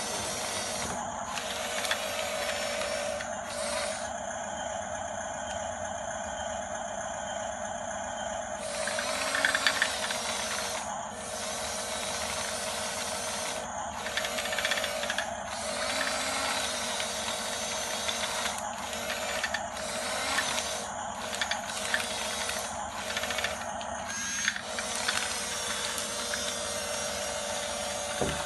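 Electric drive motors and gearboxes of an RC toy bulldozer whirring with a steady whine, cutting out for a moment and starting again many times. It is louder for a second or so about ten seconds in.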